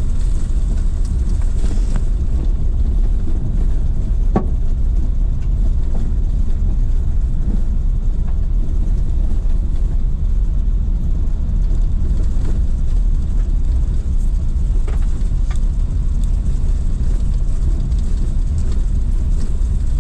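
Car driving over a stony dirt road, heard from inside the cabin: a steady low rumble of tyres and engine, with a few sharp knocks, the clearest about four seconds in.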